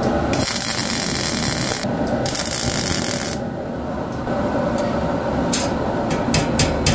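MIG welder arc welding a steel washer onto the back of a steel saw blade, a steady sound broken into several short bursts near the end.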